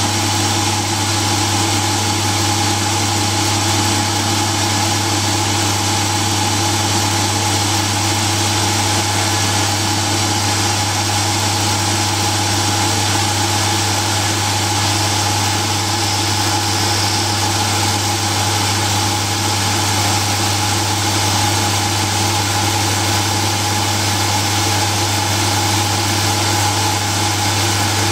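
Drilling machine running steadily with a constant hum, spinning a homemade carbide flow drill pressed into a hard steel file; the drill is heating the steel red by friction to push through it.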